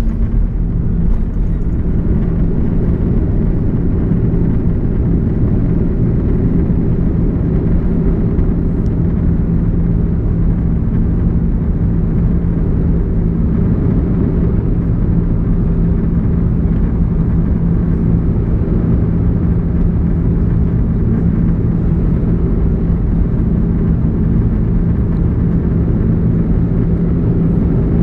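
Airbus A330 cabin noise: a steady, loud drone of the engines and airflow with a low, even hum.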